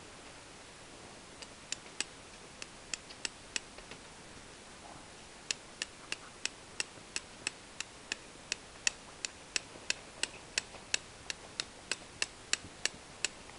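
Fire-lighting strikes, a steel striker hitting a flint held in the hand to throw sparks onto tinder: sharp clicks, a handful at first, then after a short pause a steady run of about three strikes a second.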